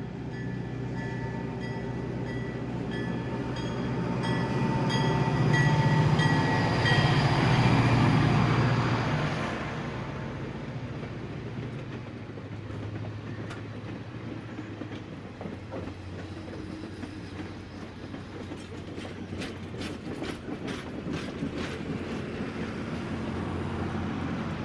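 N scale model freight train running past: a steady motor hum with rhythmic clicking of wheels over the track joints, growing loudest about six to nine seconds in and then easing off, with a run of sharper clicks near the end.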